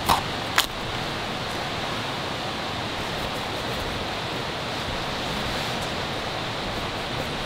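A steady, even rushing hiss, with two short sharp clicks in the first second.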